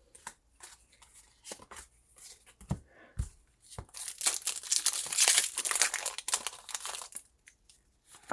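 Foil wrapper of a Pokémon trading-card booster pack crinkling under the hands, then torn open in one long, loud rip of about three seconds, with light rustling and taps before it.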